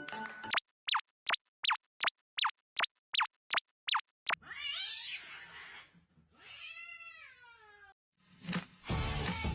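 Cat-meme sound clip: a quick run of about ten short high chirps, each dropping in pitch, then a rasping cat cry and one long meow that falls in pitch. Music comes back in near the end.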